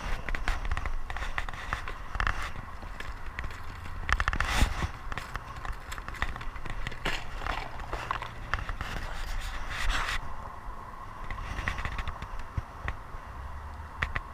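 Irregular scraping, rustling and clicking handling noises, with a louder knock about four and a half seconds in.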